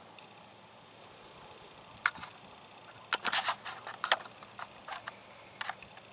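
Scattered short, sharp clicks and crackles, about a dozen at irregular intervals with a dense cluster a little past three seconds in, over a faint steady high-pitched hum.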